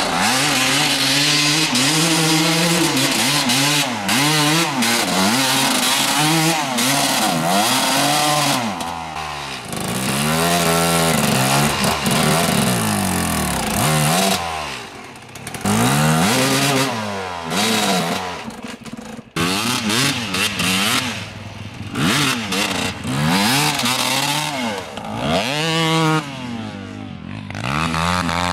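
Dirt bike engines revved up and down over and over, the pitch rising and falling about once a second, as the bikes ride and slide through snow.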